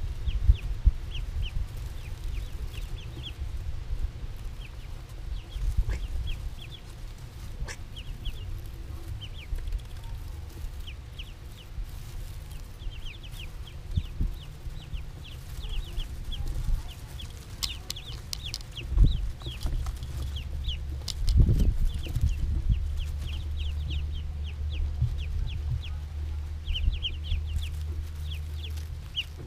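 A brood of ducklings peeping: short, high peeps in quick runs, thickest in the middle and near the end. Under them runs a low rumble, with a couple of dull bumps a little after two-thirds of the way in.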